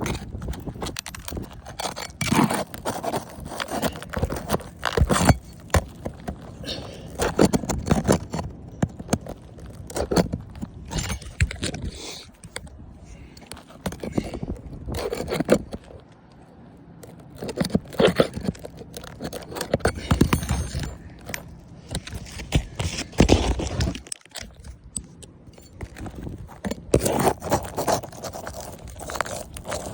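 Irregular scraping, clinking and knocking of a tool worked under a roof shingle, prying its fasteners loose so the shingle can be pulled.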